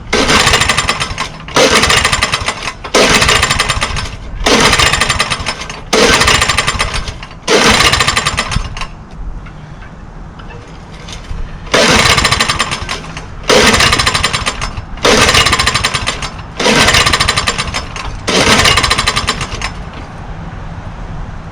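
Honda walk-behind lawnmower engine being pull-started over and over: about ten quick pulls on the recoil starter, each cranking the engine in a rapid chugging that fades out within a second without the engine catching, with a short pause after the first six. The engine has just been taken off choke after failing to start.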